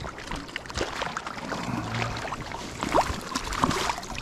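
Splashing and sloshing in shallow river water as a hooked trout thrashes at the surface while being played in on a fly line, with a few sharper splashes about three seconds in.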